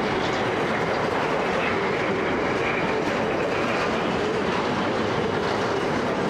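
Freight train's container well wagons rolling past, a steady noise of steel wheels on rail.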